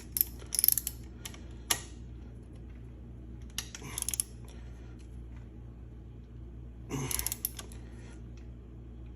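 Metal hand tools clicking and clattering in a few short bursts while the gear shift lever's bolt is worked on, over a steady low hum.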